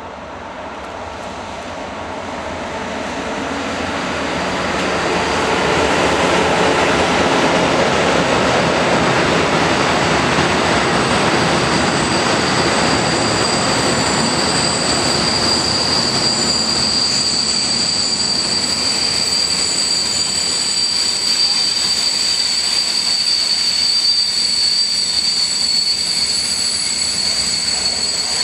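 A freight train hauled by an electric locomotive passes close by. Its rumble grows louder over the first six seconds as it approaches, then holds steady as the covered wagons roll past. About halfway through, a high, steady squeal from the wheels sets in over the rolling noise.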